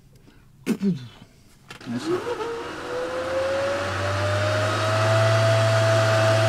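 DAB Esybox Mini3 inverter water pump starting up on its first run, building pressure in the freshly plumbed water system. A click, then a motor whine that rises in pitch over about three seconds and settles into a steady tone over a low hum, getting louder as it runs up.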